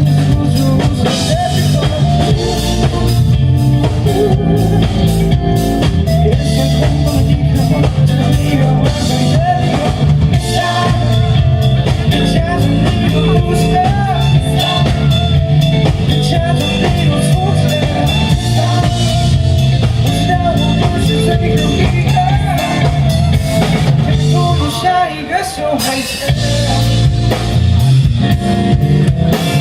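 Live rock band playing: drum kit, guitars and bass, with a melodic line wavering over them. The band drops back briefly about 25 seconds in, then comes back in full.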